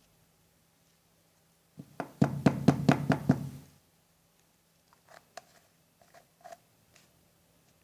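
A quick run of about eight sharp knocks over a second and a half, followed by a few fainter clicks.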